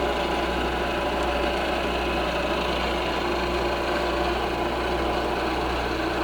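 Milling machine running steadily, its spindle turning a carbide cutter at about 1500 RPM, with a constant hum and several steady tones.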